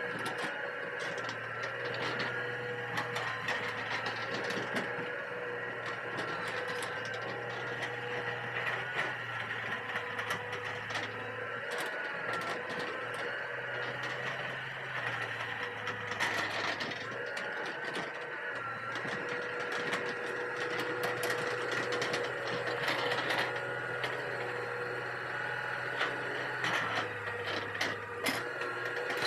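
Hitachi EX200 hydraulic excavator running while levelling soil: a steady engine hum and hydraulic whine that dips and recovers a few times with the load, with scattered clanks and knocks from the machine working.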